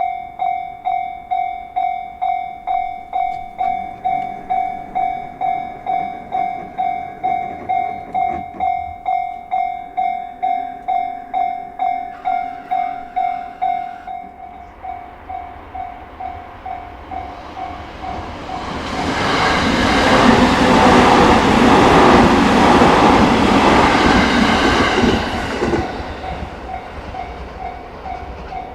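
Japanese level-crossing warning bell ringing steadily, about two dings a second. About 18 seconds in, a train passes loudly through the crossing for some seven seconds while the bell keeps ringing.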